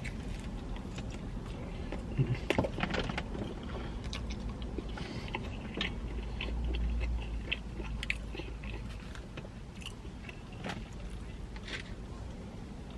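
Close-up mouth sounds of a person biting and chewing pepperoni pizza: wet chewing with scattered small clicks and crunches. A steady low rumble runs underneath.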